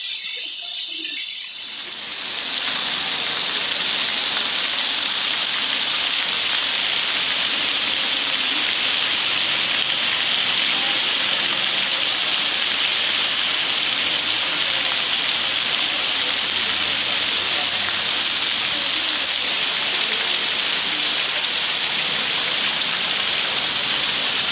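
Torrential rain pouring down onto a flooded street, a dense steady hiss of falling water that swells up about two seconds in and holds unchanged.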